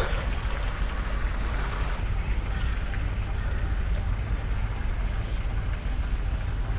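Steady low outdoor rumble with an even hiss above it and no distinct events.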